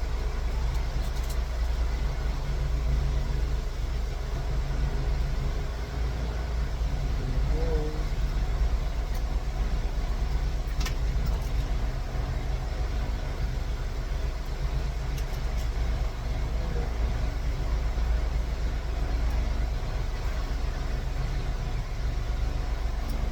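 Steady low hum of an idling vehicle engine, with one sharp small click about eleven seconds in.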